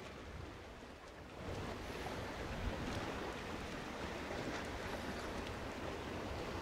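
Water lapping at a sailboat's hull at anchor, with wind on the microphone; it grows louder about a second and a half in.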